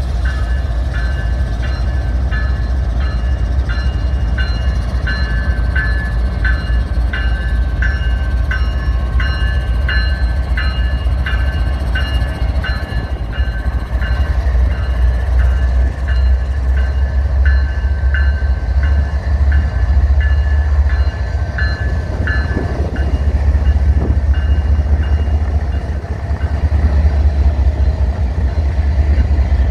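CSX GE diesel locomotives rolling slowly past with a deep, steady engine rumble. A bell rings about twice a second over it and stops about two-thirds of the way through.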